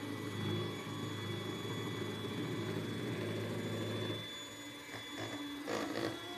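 A steady low motor hum that stops about four seconds in, followed by a few short faint sounds.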